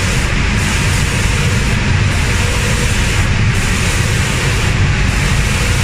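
Automatic cabinet-door spray-painting machine running: a steady loud hiss of spray guns over a low rumble. The high part of the hiss dips briefly about every second and a half.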